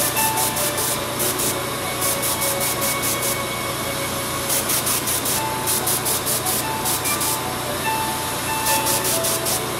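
Airbrush spraying paint in short repeated bursts of hiss, several quick pulses at a time with brief pauses between.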